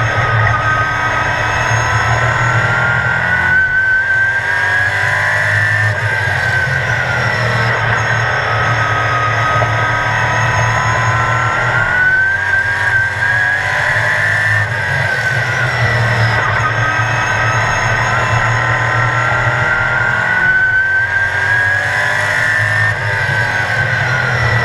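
Sportsman-class oval race car's engine heard from inside the car at racing speed. The revs climb for several seconds, then drop away as the driver lifts, and the cycle repeats roughly every eight to nine seconds.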